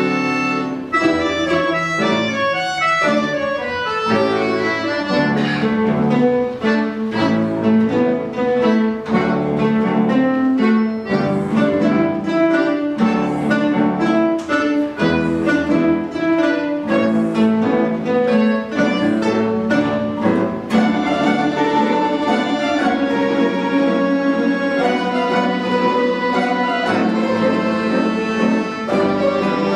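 Russian folk-instrument ensemble playing a jazz-style piece built on scales, with quick runs of notes that give way to fuller, held chords about two-thirds of the way through.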